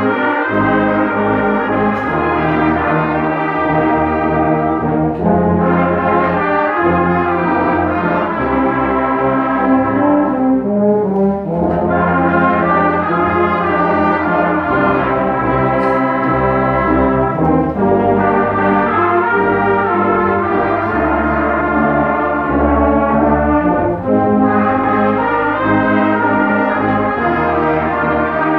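Brass band playing full sustained chords, in phrases of about six seconds with brief breaks between them.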